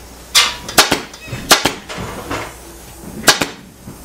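Pneumatic upholstery staple gun driving staples into heavy fabric: four sharp shots at uneven intervals.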